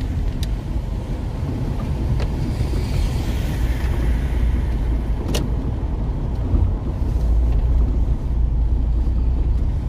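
Car cabin noise while driving on a wet road in the rain: a steady low engine and road rumble with tyre hiss, and a sharp click about five seconds in.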